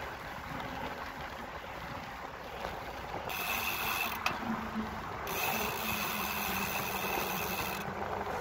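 Bicycle ride: tyres rolling over paving stones with wind rushing on the microphone, and the rattle of the ride. From about three seconds in to near the end a higher hiss joins.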